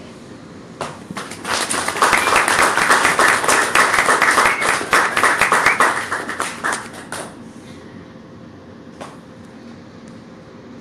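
Small audience clapping: it starts about a second in, is fullest for a few seconds and dies away after about seven seconds. After that comes quiet room tone with a single knock.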